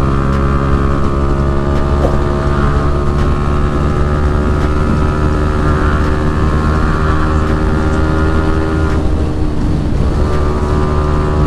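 Yamaha R15M's single-cylinder engine running at steady cruising revs under way, heard from the rider's seat, with wind noise on the microphone.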